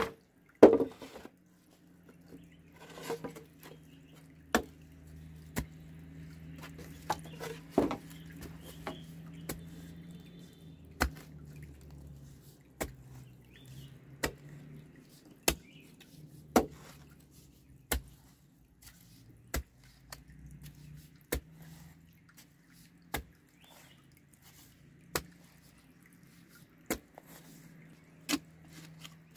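A long-handled digging bar with a flat metal blade jabbed repeatedly into damp earth to dig a hole, giving sharp thuds about once every second or so, over a faint low steady hum.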